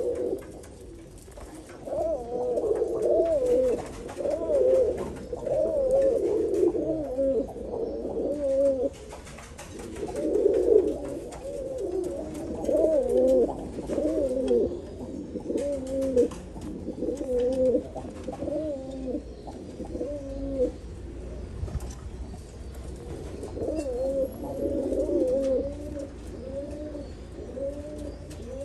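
Domestic high-flyer pigeons cooing in a loft: repeated low, rolling coos in long bouts, with short pauses about a third and three quarters of the way through.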